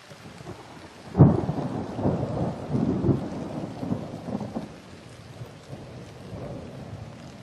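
Large stiff sheet of art board flexing and rubbing as it is pressed against the body: a sudden rumbling rustle about a second in that swells several times and dies away by about five seconds.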